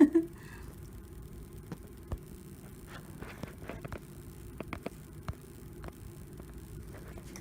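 A steady low hum with scattered light clicks and taps, as of objects being handled, and a short low voiced sound right at the start.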